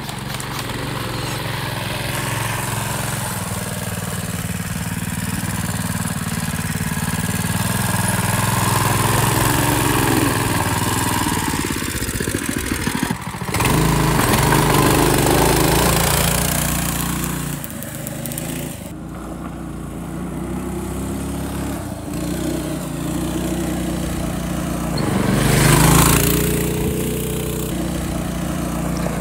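A small engine running as the vehicle is driven, its pitch rising and falling with the throttle, with a brief break about halfway through and a louder surge near the end.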